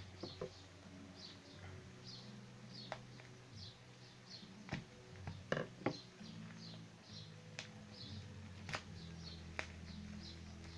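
Hands handling a Yuxin Little Magic speed cube and its clear plastic packaging: scattered faint clicks and crinkles, the sharpest a few snaps about five to six seconds in. Under them are a steady low hum and short high chirps repeating about twice a second.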